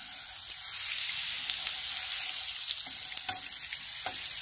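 Butter sizzling and bubbling as it melts in hot olive oil in a frying pan, pushed around with a wooden spatula: a steady hiss with scattered small crackles.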